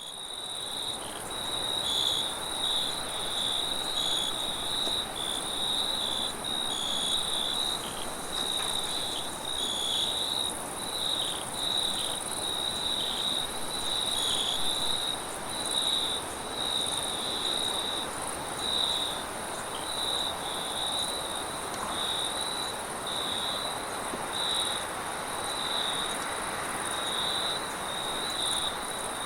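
Crickets chirping: a high chirp repeated about once a second over a higher, continuous trill. A steady hiss of wind lies beneath.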